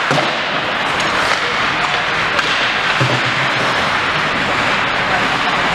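Steady spectator noise, a murmur of many voices, with scattered short knocks and clicks from play.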